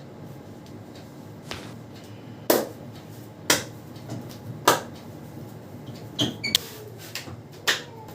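Several sharp slaps of hands on skin, roughly one a second, the loudest three in the middle, with lighter taps between them.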